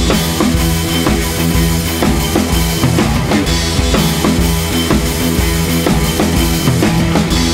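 Background music with drums keeping a steady beat.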